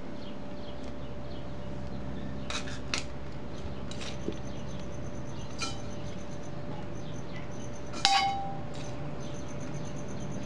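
Light clinks and knocks of garden pots and tools being handled, a few scattered strokes. The loudest comes near the end with a brief ring after it. A steady hum runs underneath.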